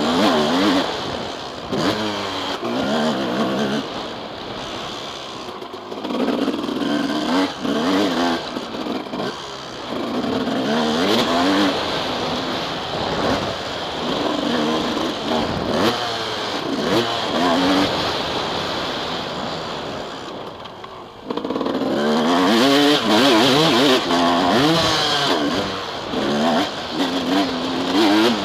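Suzuki RM 250 single-cylinder two-stroke motocross engine revving hard and rising and falling in pitch as the rider works the throttle and gears around a dirt track. About three-quarters of the way through the throttle is briefly closed and the engine drops away, then it revs hard again.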